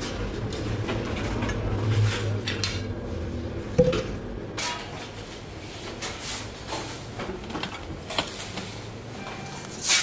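Kitchen work sounds: scattered knocks and clicks of things being handled and set down over a steady low hum, which fades a little after the first few seconds.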